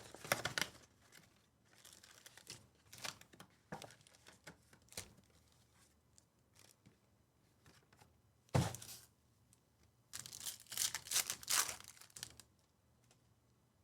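Trading card pack wrappers being torn open and crinkled in scattered bursts, with one sharper, louder thump about eight and a half seconds in and a longer run of tearing and crinkling from about ten to twelve seconds.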